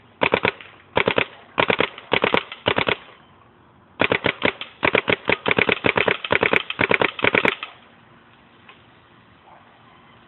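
Smart Parts Ion electronic paintball marker firing on three-shot burst: several quick bursts of sharp pops in the first three seconds, then a fast string of shots from about four seconds in that stops a little before eight seconds.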